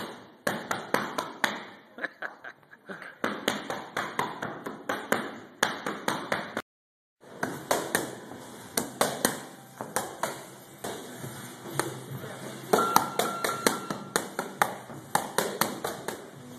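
Boxing gloves landing on focus mitts in quick flurries of punches, sharp slaps several a second. The sound drops out briefly about seven seconds in.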